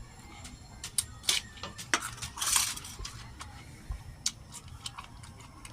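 Eating sounds of someone eating chicken: scattered sharp clicks, with a short louder crackle about two and a half seconds in.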